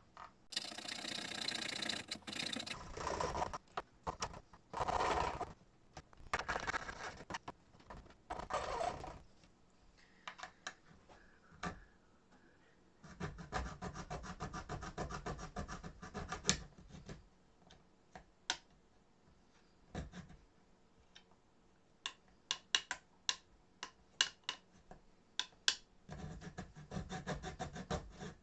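Fine razor saw cutting through model railway rails: bursts of quick back-and-forth rasping strokes, broken by pauses with scattered light ticks and taps of the blade on the track.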